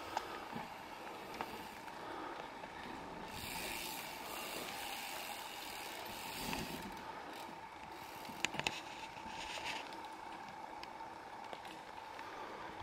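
Mountain bike rolling past, a rushing tyre noise that swells for a few seconds near the start, then a few sharp clicks from the bike a little after the middle.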